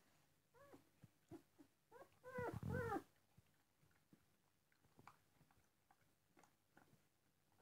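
Twelve-day-old collie puppies squeaking and whimpering while nursing, each call a short squeal that rises and falls in pitch. Several louder squeals come close together about two to three seconds in, then only faint small sounds.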